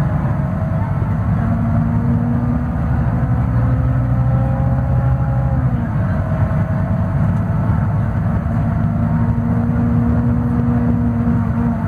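Scania DC09 five-cylinder diesel engine of a city bus pulling uphill under load, heard from inside the passenger cabin. Its note rises slowly, drops about six seconds in as the ZF automatic gearbox changes gear, then climbs again.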